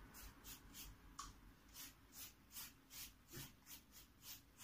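Silicone pastry brush swishing over a baked biscuit in quick back-and-forth strokes as it wets it with water; faint soft swishes, about two or three a second.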